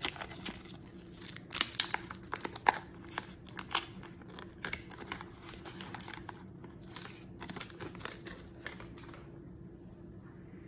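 Wax paper trading-card pack wrapper being torn open and crinkled, a run of sharp crackles and tearing that stops about nine seconds in.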